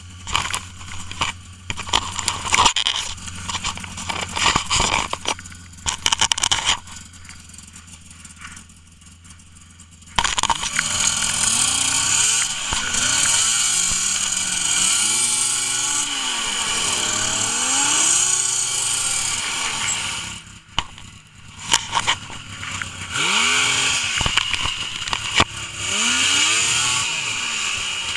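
Yamaha snowmobile engine idling while snow is scraped and kicked away from the stuck sled. From about ten seconds in the engine is revved hard over and over, its pitch rising and falling, as the snowmobile is rocked and driven to free it from deep snow.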